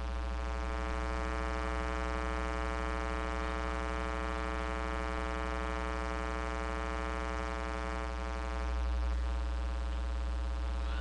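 Steady low electrical-sounding hum with many evenly spaced overtones, swelling slightly about nine seconds in.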